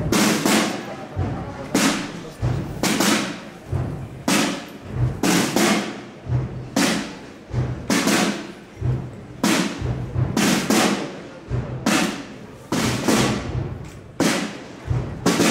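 Procession drums beating a slow, steady march rhythm, the strokes often coming in pairs about once a second.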